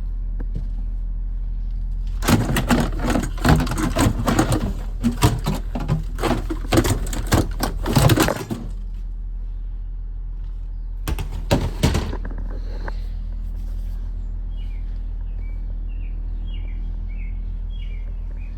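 A steady low hum, broken by several seconds of loud, rapid clattering and knocking and a second brief clatter. Near the end a small bird chirps several short times.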